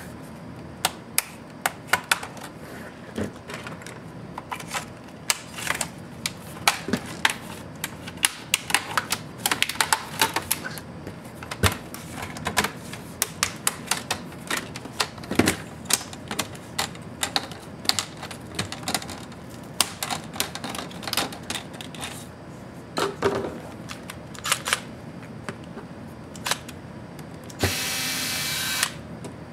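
Plastic clips of an MSI GE70 laptop's display bezel clicking and snapping as the bezel is pried off the screen lid, many sharp clicks at uneven intervals. Near the end a cordless electric screwdriver runs for about a second and a half.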